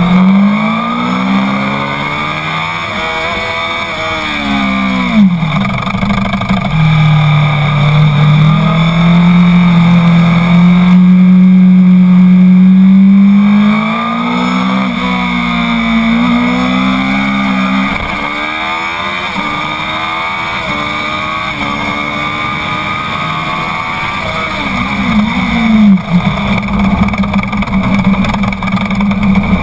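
Honda CBR 1000's inline-four engine on track, heard from on board, revving up through the gears and dropping in pitch as it slows for corners, over steady wind noise. The longest and loudest pull, at high revs, comes around the middle, and there are sharp drops in pitch about five seconds in, again past halfway, and near the end.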